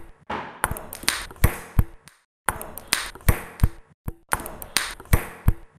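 Table tennis ball hits: a quick run of sharp, ringing taps at about four a second, like a ping pong rally, with a short pause about two seconds in, cutting off suddenly near the end.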